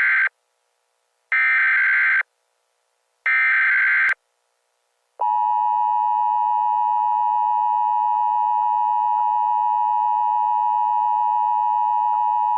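Emergency Alert System header: the end of one burst of screechy SAME data tones, then two more identical bursts about a second apart. About five seconds in, the EAS attention signal starts, a steady two-tone electronic drone held for about eight seconds, warning that an emergency message follows.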